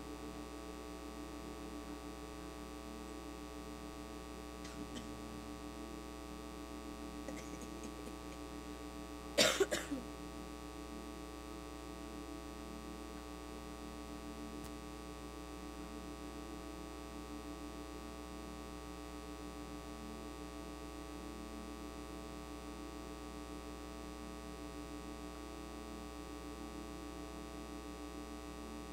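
Steady electrical hum, with one short cough about a third of the way in.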